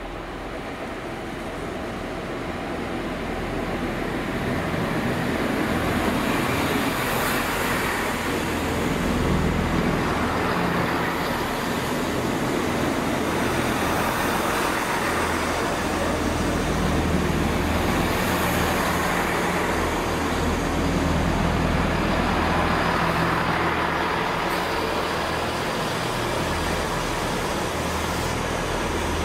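Class 165 Turbo diesel multiple unit coming into the platform: the drone of its underfloor diesel engines grows over the first several seconds, then holds steady.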